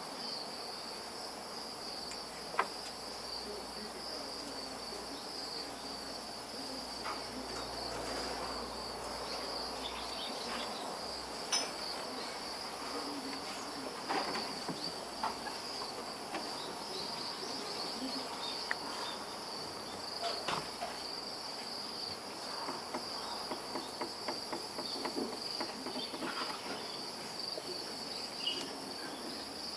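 Steady high-pitched chirring of insects, crickets by their sound, with a few light clicks and taps scattered over it.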